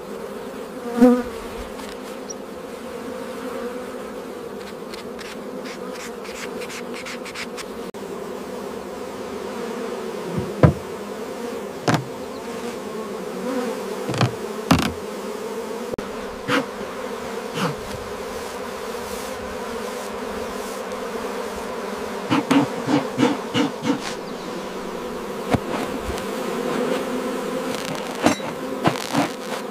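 Mass of honeybees buzzing steadily around open hives, with scattered sharp knocks and clicks, including a quick run of them about three quarters of the way through.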